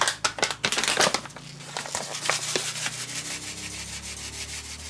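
A spice bag of ground pepper crinkling as it is opened and handled, with sharp irregular crackles for the first second and a half. Then comes a quicker, softer rustling as the bag is shaken out.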